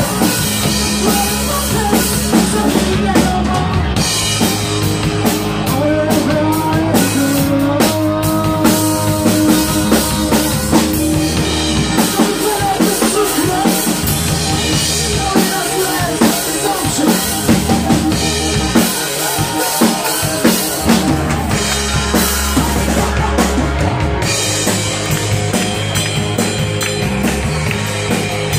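Live rock band playing loudly, with a drum kit beating steadily under electric guitar.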